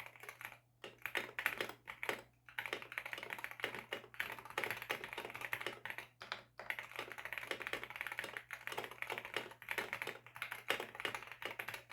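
Wooting 60 HE mechanical keyboard being typed on fast and continuously, its stock Hall-effect magnetic switches and keycaps clacking in a dense stream of keystrokes, with short breaks a little under a second in and about six and a half seconds in.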